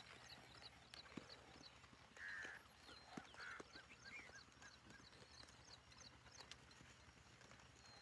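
Faint sounds of sheep grazing: scattered soft clicks of grass being cropped. Small birds chirping in the background, with short high chirps repeating throughout and a brief louder call about two seconds in.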